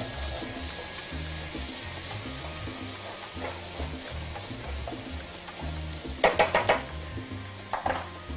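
Diced red pepper and spring onion sizzling in oil in a frying pan as a wooden spoon stirs them, over soft background music. A short louder burst comes about six seconds in.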